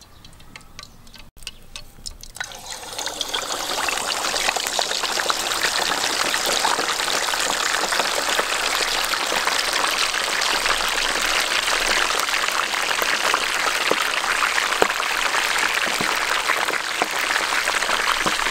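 String-tied roll of skin-on pork belly sizzling as it deep-fries in a pot of hot oil: a dense crackling hiss that swells in a couple of seconds in and then holds steady.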